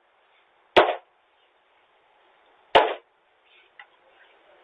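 Two sharp bangs about two seconds apart.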